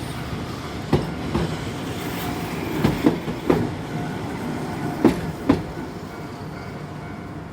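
Keifuku Electric Railroad (Randen) train passing at a level crossing: a steady running rumble with the wheels clacking in pairs over the rail joints, three sets of knocks, then the rumble fades as it moves off.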